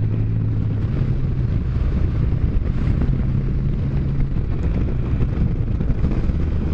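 Can-Am Spyder F3's 1330 cc inline three-cylinder engine running steadily while riding, with wind rushing over the helmet microphone.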